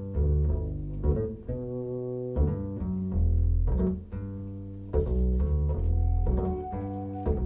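Bass-heavy music played over hi-fi loudspeakers driven by an SMSL AO300 Class D integrated amplifier, recorded by stationary microphones about ten feet away in the room. Deep bass notes change roughly every half second to a second.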